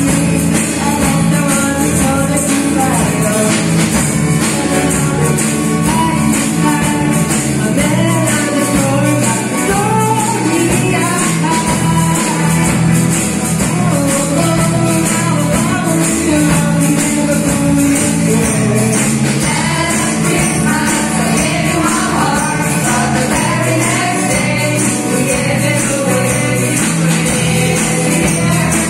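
A group of female singers sings a song into microphones, backed by a live band of electric guitars and keyboard with steady bass notes. A bright, continuous jingling percussion sits on top.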